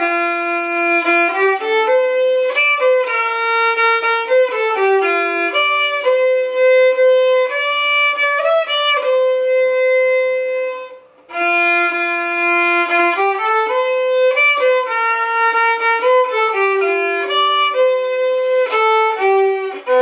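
Background music: a solo violin playing a slow melody of held notes, breaking off for a moment about halfway through before going on.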